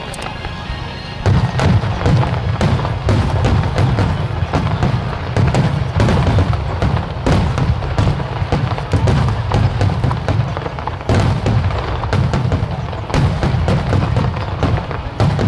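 Fireworks barrage, many shells bursting in rapid succession with deep booms and crackling, growing much denser about a second in, over music.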